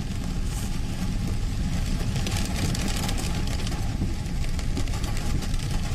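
Traffic on a rain-soaked road: a steady low rumble of vehicle engines and tyres on wet tarmac, with a hiss of rain over it.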